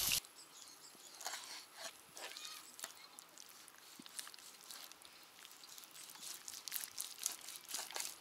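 Kitchen knife cutting raw chicken thigh on a wooden cutting board: quiet, scattered crisp cuts and clicks of the blade against the board. It opens with a split second of meat sizzling on a grill that cuts off abruptly.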